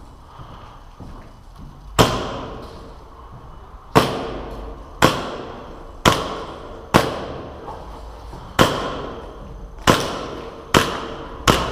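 Airsoft gun fired one shot at a time, nine sharp cracks spaced about a second apart, each followed by a short echoing tail.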